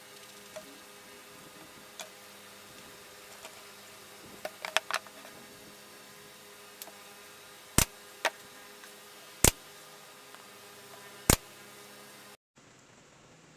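Plywood panels knocking against one another and the table as a box is stood up and fitted together: a quick cluster of small knocks about four to five seconds in, then four sharp, louder single knocks, over a faint steady hum.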